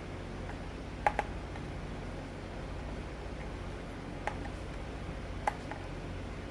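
A few light clicks and taps of small parts and a hand tool being handled while an RC truck is reassembled: a quick pair about a second in, then single clicks later. Under them is a steady low hum.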